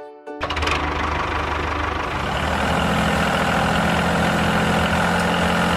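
An engine running steadily, starting about half a second in.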